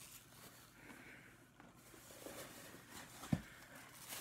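Quiet room with faint handling noises of grocery packages being picked up, and one soft low thump a little over three seconds in.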